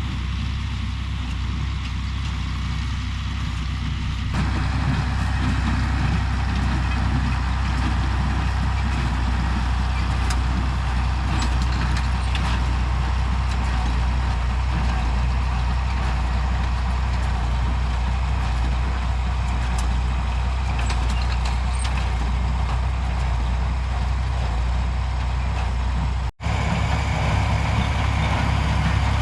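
Tractor engine running steadily, a little louder from about four seconds in. The sound cuts out for an instant near the end.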